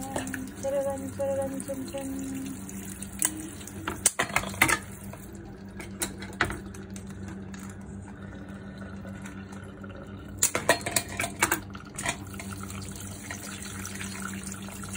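Tap water spraying into a stainless steel kitchen sink over a pile of blue swimmer crabs, with sharp clicks and clatters of crab shells and kitchen scissors knocking against each other and the sink, bunched about four seconds in and again around ten to eleven seconds in. A steady low hum runs underneath.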